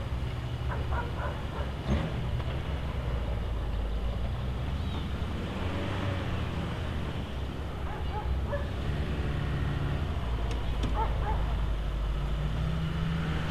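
Suzuki SJ off-road 4x4's engine running at low revs as it crawls over bare rock, a steady low drone that picks up a little about nine seconds in and again near the end.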